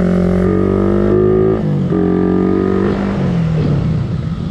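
Suzuki Raider 150 Fi single-cylinder motorcycle engine running at steady revs while riding, the pitch dipping briefly and picking up again about a second and a half in, then the revs falling away near the end.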